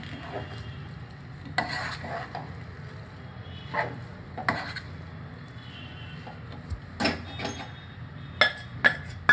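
A wooden spoon scraping and knocking against a nonstick pot as cooked basmati rice is turned and mixed with gravy, in a handful of separate strokes, the sharpest knocks near the end, over a steady low hum.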